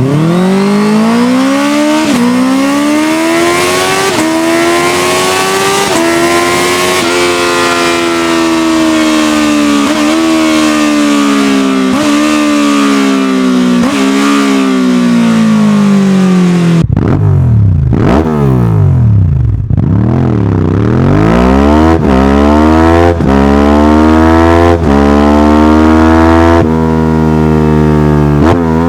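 Sport motorcycle exhaust under hard acceleration, the pitch climbing and dropping at each upshift. About two-thirds of the way in it cuts to a second, lower-pitched motorcycle that is blipped twice and then accelerates through the gears.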